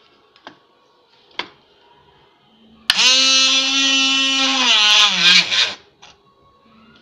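Small 12-volt DC motor of a homemade drill press starting suddenly and running with a steady whine as its bit drills into a CD. After about two seconds its pitch sags as it slows, and it stops: the bit is sticking in the plastic, which the maker puts down to the plastic melting from the heat. Two light clicks come before it starts.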